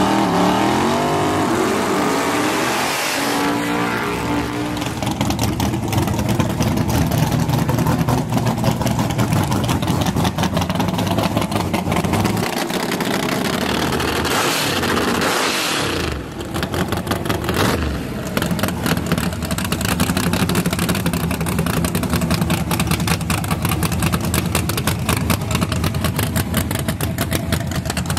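Drag-race pickup's engine revving up and down in the first few seconds, then running at a steady, choppy idle at the starting line.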